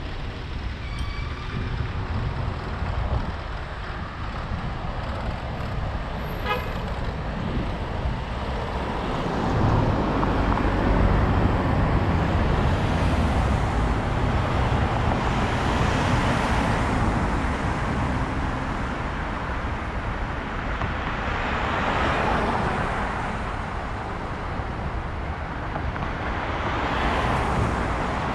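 City street traffic: cars driving past one after another, each swelling and fading, over a low wind rumble on the helmet-mounted microphone.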